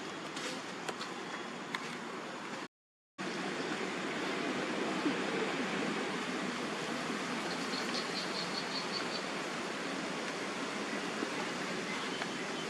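Steady rushing outdoor noise, cut off by a brief dropout about three seconds in. Around eight seconds in comes a quick run of about seven short, high chirps.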